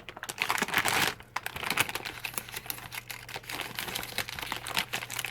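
Irregular crinkling and rustling of a folded paper note and its packaging being handled and unfolded, a quick run of small crackles and clicks.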